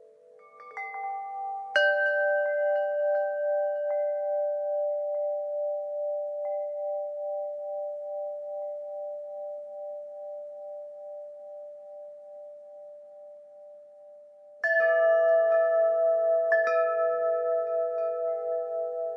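Wind chimes ringing. A few notes are struck about a second in and fade away slowly with a gentle pulsing, then a louder cluster of strikes comes near the end and keeps ringing.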